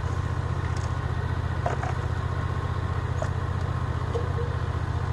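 A rice transplanter's small engine running steadily while the machine plants seedlings in a flooded paddy, with a fast, even beat.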